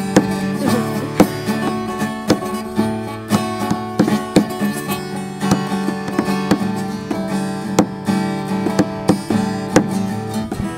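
Acoustic guitar strumming chords in a steady rhythm with no singing. The guitar is badly out of tune.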